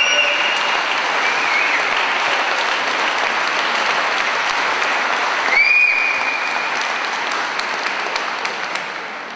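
Church congregation applauding, steady clapping that fades toward the end. Two rising whistles cut through it, one at the start and one about five and a half seconds in.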